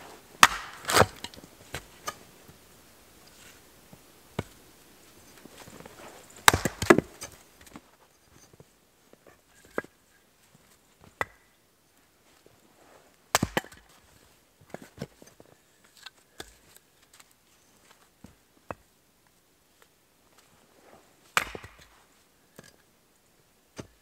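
An axe splitting firewood rounds on a chopping block: four heavy strikes several seconds apart, the first two each doubled, with lighter wooden knocks in between.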